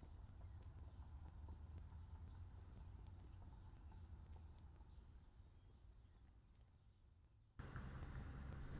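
Faint, short, very high bird chirps, five of them about a second or so apart, over a low steady rumble. Near the end the rumble cuts out abruptly and then returns louder.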